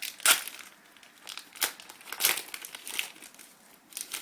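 Foil wrapper of a 2010-11 SP Game Used hockey card pack crinkling and tearing open in a series of short rustles, the loudest about a third of a second in.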